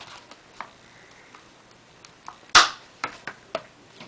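Light clicks and taps of packaging being handled, with one short, louder rustle about two and a half seconds in.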